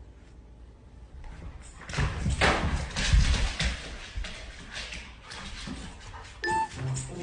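A dog moving about, with irregular scuffling noises and dull thumps; a few piano notes begin near the end.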